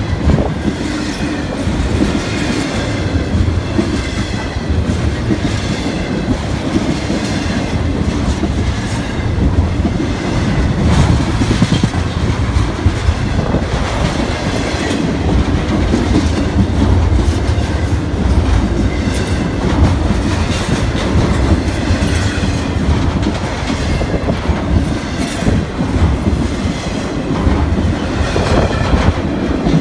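BNSF intermodal freight train's flatcars, loaded with truck trailers, rolling past close by. The wheels make a steady loud rumble with repeated clicks as the wheel sets cross rail joints.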